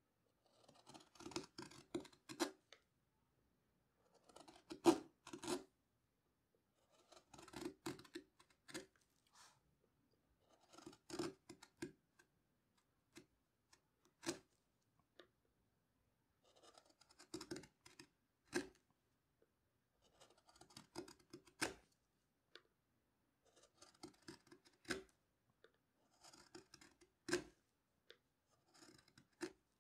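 Carving gouge slicing shavings from a turned wooden lampshade by hand: short bursts of a few crisp cuts, about one burst every three seconds.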